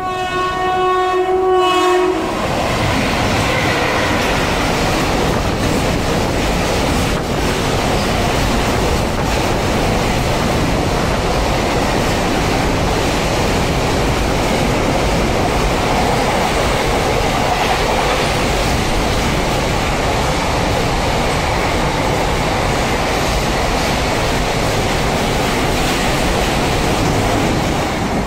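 Twin WAG-5 electric locomotives at the head of a container freight train sound one long horn blast for about two seconds. The train then runs through with a loud, steady rolling rumble from its wagons, which eases off just as the last wagon passes at the end.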